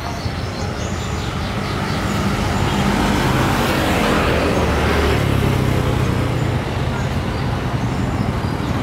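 Road traffic of small motorbikes and scooters running along the street. One vehicle passes close, its engine and tyre noise swelling and fading about three to five seconds in.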